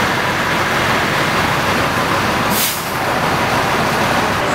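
Loud steady rumble of street traffic with heavy vehicles, with a short hiss about two and a half seconds in.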